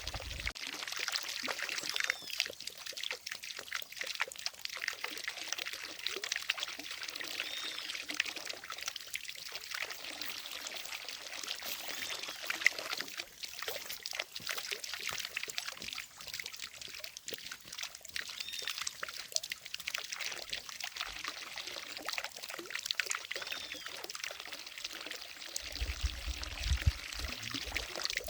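Water falling from a fountain into a lake, a steady splashing pour, with a brief low rumble near the end.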